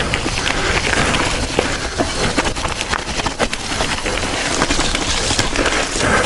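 Mountain bike descending a rough dirt trail at speed: tyres rolling and crunching over dirt and rocks, with frequent sharp knocks and rattles from the bike over bumps, and wind rushing over the camera microphone.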